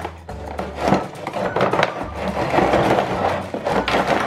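Cardboard box and plastic packaging rustling and scraping as toys are slid out of the box, with irregular rubbing and small knocks.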